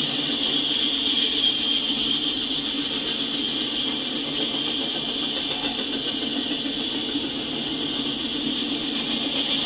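Freight train of autorack cars rolling past, a steady noise of the moving train, heard through a screen's speaker from a live camera feed.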